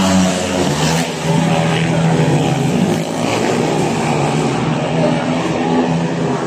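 Several speedway motorcycles racing together, their 500 cc single-cylinder methanol engines running hard at high revs, the overlapping engine notes shifting in pitch as the bikes slide through the bend.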